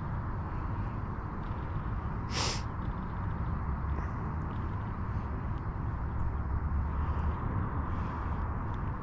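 Steady low rumble and hiss of open-air background, with one brief sharp hiss about two and a half seconds in.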